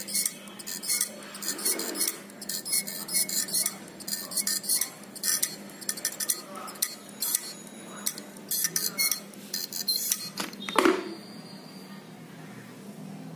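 Small metal parts of a dismantled hard disk drive clinking and rattling in quick, irregular bursts as they are handled, with one louder knock near the end.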